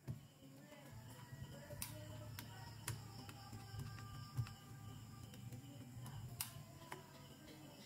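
A few light, sharp clicks and taps of small plastic toy pieces being handled, over a faint low hum.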